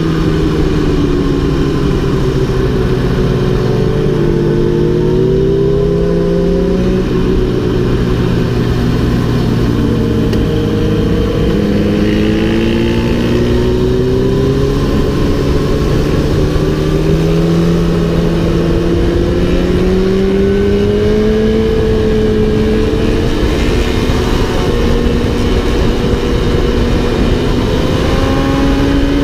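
2008 Yamaha R1's 998 cc inline-four engine at racing speed, its note rising and falling again and again through gear changes and corners, under heavy wind rumble on the microphone.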